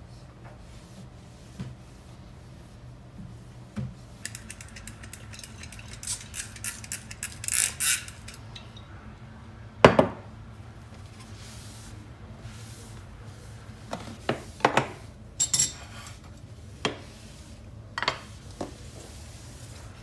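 Trigger spray bottle misting cleaner onto a countertop in a quick run of short hissing sprays. About ten seconds in comes one sharp, loud knock, and later a scatter of lighter knocks and clinks as the surface is wiped down.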